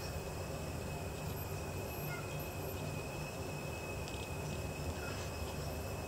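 Beluga whales calling underwater: short, faint high squeaks and chirps, with a few faint clicks about four to five seconds in. Beneath them runs a steady low hum and a constant high tone.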